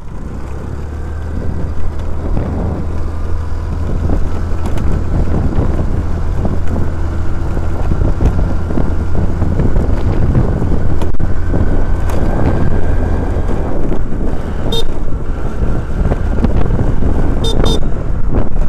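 Motor scooter riding uphill with a steady low rumble of engine and wind. Its horn gives a short beep near the end, then two more in quick succession, sounded as a warning on blind bends.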